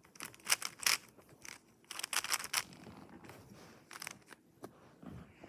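Things being handled on a desk: irregular sharp clicks and rustles, coming in small clusters.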